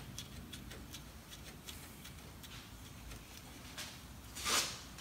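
Faint, even ticking throughout. About four and a half seconds in, a short metallic scrape as a new brake pad is pushed into the caliper bracket of the front disc brake.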